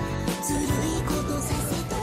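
Background pop music: a sung melody over a beat.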